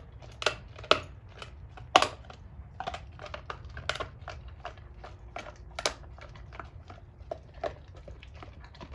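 Doberman chewing a raw pork bone with meat on it, its teeth crunching and cracking the bone in sharp, irregular snaps, a few a second. The loudest crack comes about two seconds in.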